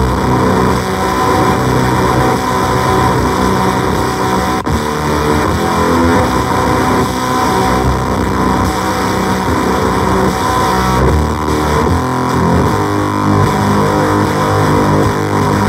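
Electric guitar played through a LOE Sounds Superfuzz pedal and amplifier: dense, heavily distorted fuzz tone with sustained, overlapping notes. There is a brief break about four and a half seconds in.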